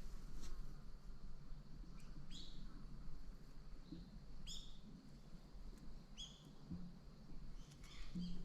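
A small bird chirping outdoors: short, sharp chirps about every two seconds, then a quicker run of chirps near the end.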